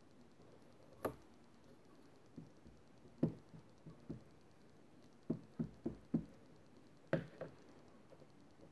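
An ink pad is tapped and dabbed onto a rubber stamp mounted on a clear acrylic stamping-tool plate, making a series of light knocks. There are single knocks, then four quick taps in a row about halfway through, then two more near the end.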